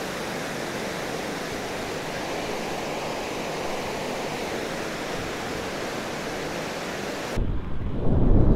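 A steady, even rushing hiss that cuts off abruptly about seven seconds in, replaced by louder, low wind buffeting on the microphone.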